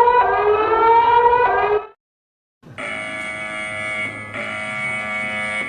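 Emergency alert system alarm tones: a slowly rising, siren-like tone that cuts off about two seconds in, then, after a short silence, a steady buzzing alarm tone made of many pitches sounding at once.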